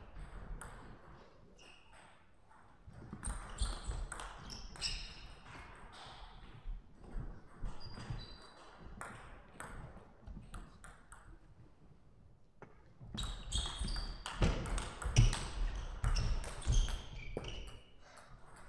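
Table tennis rallies: the celluloid-type plastic ball clicking off rackets and bouncing on the table in two spells of quick strikes, with short shoe squeaks on the court floor in between.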